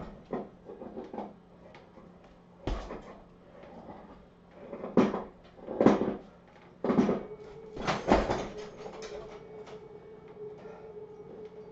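Irregular strikes on hanging punching bags: a kick into a heavy bag, then hits on a swinging teardrop bag, each a sharp thud with small rattles and clicks between. The two loudest hits fall near the middle. A steady hum starts a little past halfway.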